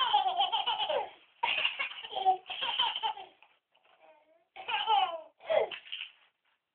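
A baby laughing hysterically in several separate bouts of high-pitched, falling laughter with short pauses for breath between them.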